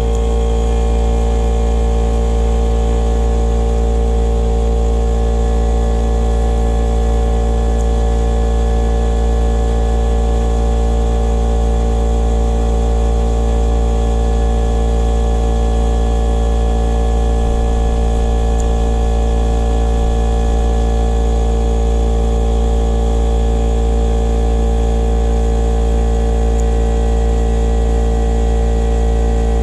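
Battery-powered portable tire inflator's compressor running steadily, filling a flat car tire. It makes an even, unchanging motor hum with no change in pitch or level.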